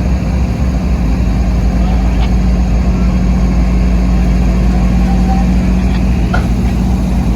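Diesel freight locomotive engine running steadily, a loud, deep, even drone.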